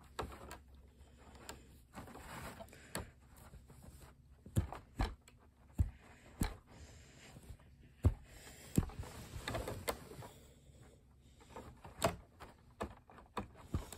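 Hard plastic parts of a NECA Bio Godzilla action figure clicking, knocking and scraping at irregular moments as the tail is worked against its stiff socket joint.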